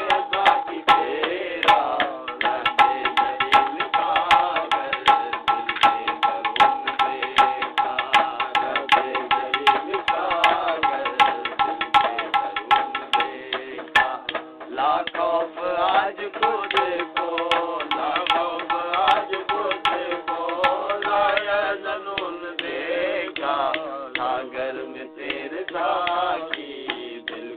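Sufi devotional song with tabla playing a fast steady beat. A long melodic note is held through the first half, and a wavering melody follows in the second half.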